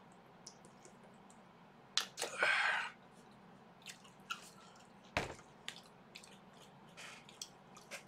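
A person drinking from a plastic bottle, then chewing, with small wet mouth clicks throughout. A short rushing noise comes about two seconds in, and a single knock about five seconds in.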